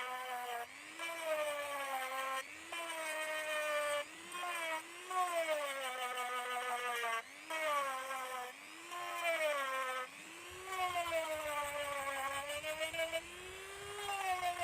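Small high-speed electric drill whining in short runs, its pitch sagging and recovering again and again as the bit is pressed into the work, with brief breaks between runs.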